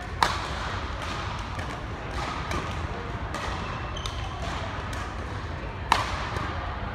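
Badminton rally: two sharp racket strikes on the shuttlecock close by, just after the start and about six seconds in, with fainter hits and footwork clicks from the far court between them. Background chatter fills the hall.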